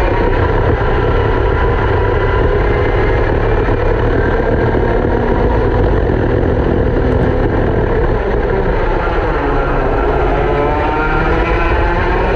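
Racing go-kart engine running hard, heard from on board the kart, over a steady low rumble. The engine note drops about nine seconds in as the kart slows for a corner, then climbs again as it accelerates out.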